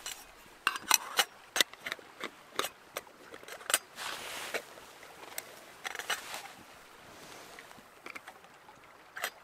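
Metal camping pot, its lid and wire bail handle clinking and tapping as they are handled and the pot is set onto a small camping stove. A quick run of sharp clinks comes in the first few seconds, then a short rustle, then a few scattered taps, the last near the end.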